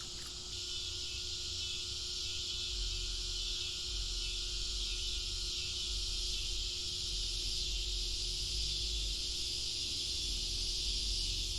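Steady summer insect chorus, a continuous high-pitched buzz, with a faint low rumble underneath.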